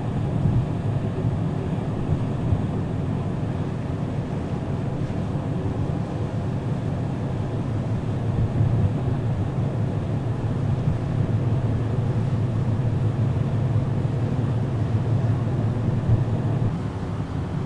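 Steady low drone of the ferry Aogashima Maru's engines while it is underway, heard from the open deck, mixed with the rush of wind and sea.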